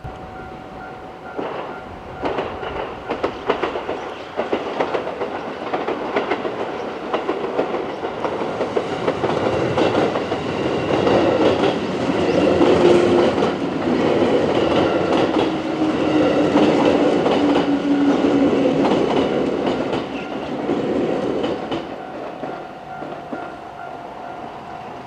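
A six-car JR West 221 series electric train passes over a level crossing, its wheels clattering rhythmically over the rail joints, with a droning tone from the train that falls slightly in pitch as it goes by. The crossing's warning bell rings steadily underneath and is heard most plainly at the start and end.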